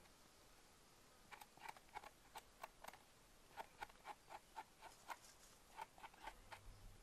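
Small knife scraping the skin off a porcini mushroom's stem: faint, short scratchy strokes, about four a second with a couple of brief pauses, starting about a second in and stopping near the end.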